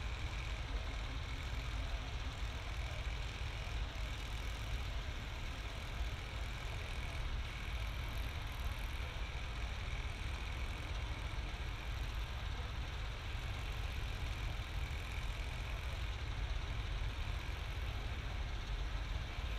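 A diesel train engine idling, a steady low rumble with a faint high whine running over it.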